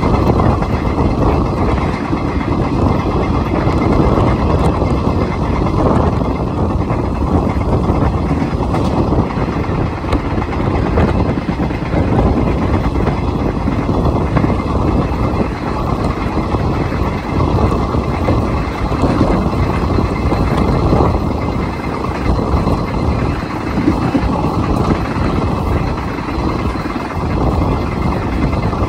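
Moving train: a steady low rumble of wheels on track and rushing air, loud and unbroken throughout.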